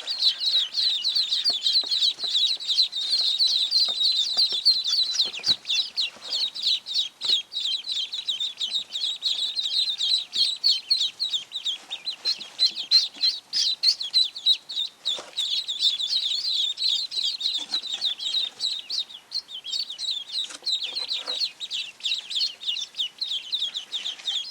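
A group of day-old ducklings, runner and golden Pekin, peeping continuously in rapid high-pitched chirps, with a few light knocks and rustles.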